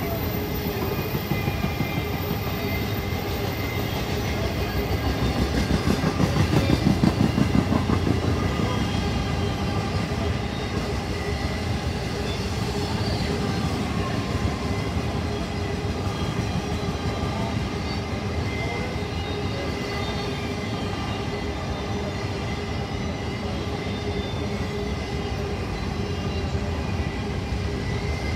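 Intermodal freight train's cars rolling past, a steady run of wheel and rail noise. The wheels clack rapidly over the rails, loudest about six to eight seconds in.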